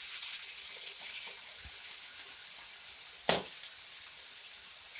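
Pork pieces sizzling in a hot wok as soy sauce is poured in: a loud sizzle that eases after the first half second into a steady, softer hiss. A sharp clack sounds about three seconds in.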